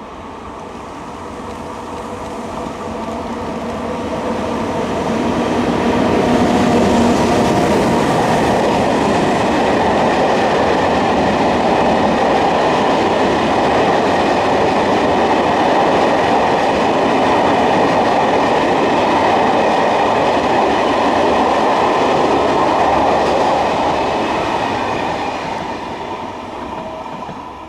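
A train passing close by on the main line: the noise builds as it approaches, runs loud and steady for about eighteen seconds while the train goes by, then fades near the end.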